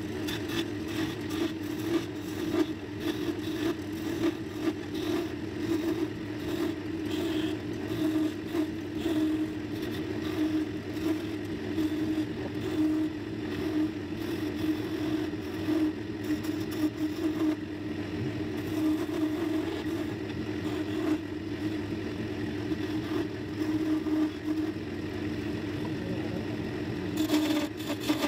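Wood lathe running with a steady hum while a skew chisel cuts a spinning mahogany spindle, an uneven scraping, shaving sound as the ball is shaped. Near the end the cutting grows a little louder and brighter.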